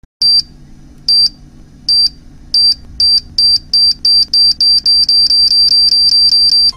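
A high electronic beep repeating, first about once a second and then faster and faster until about five a second, like a countdown timer, over a faint low steady hum.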